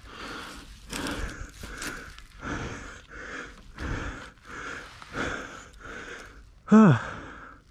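A man breathing hard and fast, out of breath from exertion, with short hissy breaths repeating about every half second. Near the end comes one loud groan that falls in pitch.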